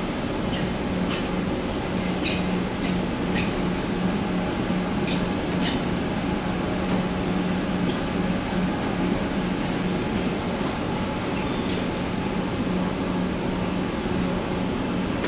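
Steady hum of a CAF M300 metro train standing at the platform, with a constant low tone from its onboard equipment and no rise or fall in pitch. A few faint light clicks come in the first half.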